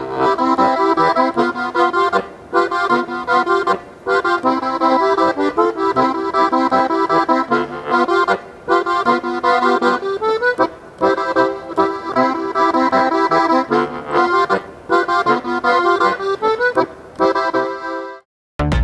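Accordion playing a traditional tune in short phrases with brief breaks between them; it stops about eighteen seconds in.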